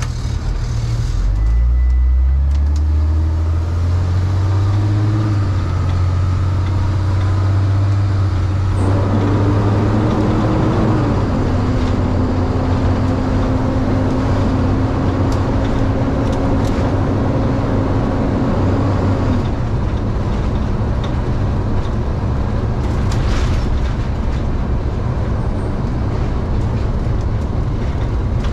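Cab noise of a delivery step van driving on the road: the engine climbs in pitch in steps over the first few seconds as the van picks up speed, with steady road noise throughout. A whine holds steady for several seconds and stops about two-thirds of the way through.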